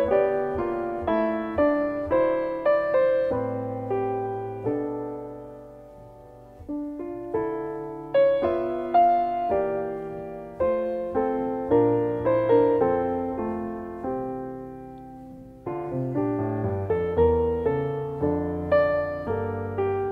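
Background music: a slow, gentle solo piano melody, note by note with chords beneath, easing off twice before picking up again.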